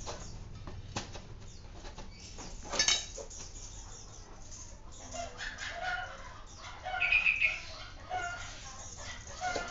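Chickens clucking, short repeated calls through the second half and loudest about seven seconds in, with a brief rattle about three seconds in.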